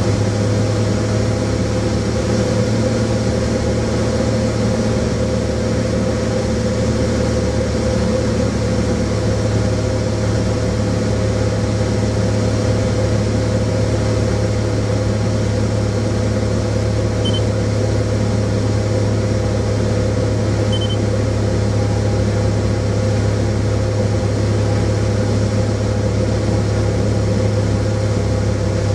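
Small plane's engine droning steadily in flight, heard from inside the cabin.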